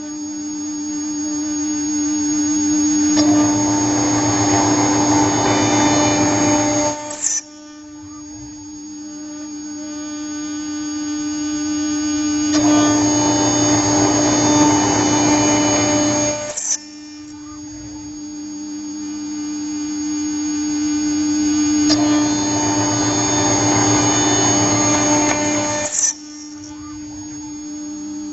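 CNC machine spindle milling an aluminium plate: a steady motor hum under a harsh cutting noise. The noise swells over several seconds and then cuts off sharply, three times, about every nine seconds.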